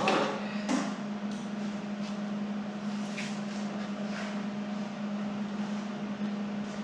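A steady machine hum runs throughout, with a few sharp metal knocks and clinks; the loudest knock comes right at the start and another follows a little under a second in.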